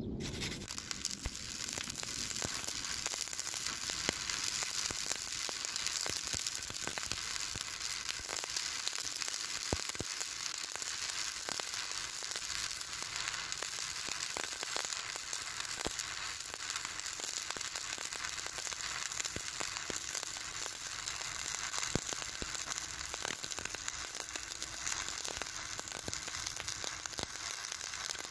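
Stick (shielded metal arc) welding on steel: the electrode's arc crackles and sizzles steadily, with occasional sharper pops.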